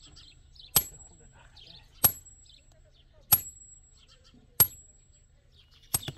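Hammer blows on the top of a steel bar held upright in the ground: five sharp metallic clangs evenly about 1.3 seconds apart, each with a brief high ring.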